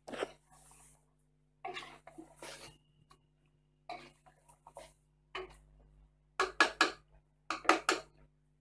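A spatula stirring mutton and masala in an aluminium pressure cooker, scraping and knocking against the pot. The loudest strokes come in two quick runs of about three near the end.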